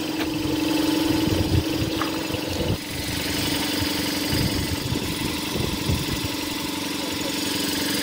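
An engine running steadily with a constant hum and low rumble, which drops a little in level about three seconds in.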